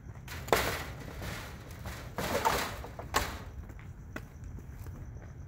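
Aftermarket chrome-plated Freightliner Cascadia grille knocking and rubbing against the truck's hood as it is lined up on its mounting clips. A sharp knock comes about half a second in, then a scraping rattle around two to three seconds in and a lighter bump near the end, over a steady low rumble.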